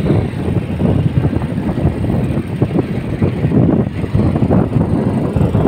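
Loud, gusting wind buffeting the microphone over the rumble of a moving vehicle on the road.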